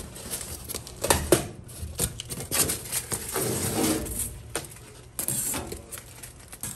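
Packing plastic, tape and cardboard being pulled off a gas stove's sheet-metal back panel: rustling and scraping with irregular clicks and knocks against the metal.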